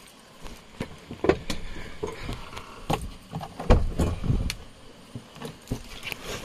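Handling noise in the cab of a parked Maruti Gypsy: irregular clicks and knocks, with a heavier low thump about four seconds in.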